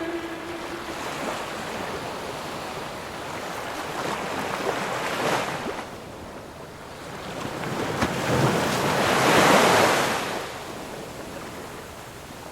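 Ocean surf washing onto a beach: a wave swells and breaks about five seconds in, and a bigger, louder one about eight to ten seconds in, then washes back.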